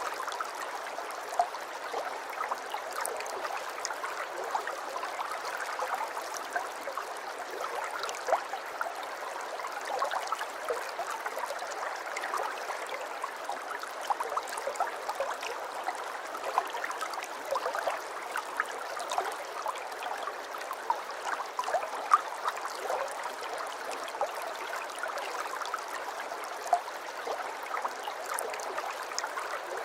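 Aquarium water trickling and gurgling steadily, with many small bubbling and dripping pops throughout.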